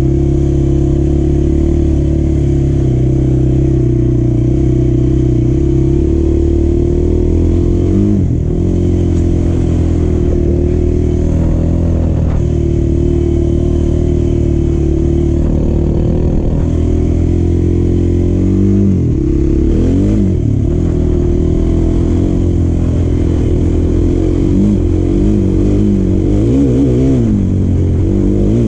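Quad bike engine running under way on a dirt track. It holds steady at first, then the revs drop and pick up again several times, wavering up and down through the last few seconds.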